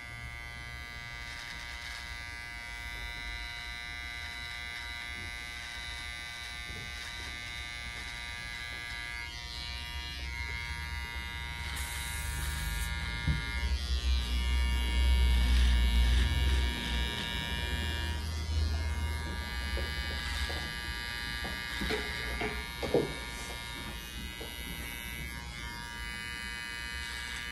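Electric hair trimmers buzzing steadily as they trim a beard and neckline. The buzz gets louder for a few seconds midway, and there is a brief click a few seconds before the end.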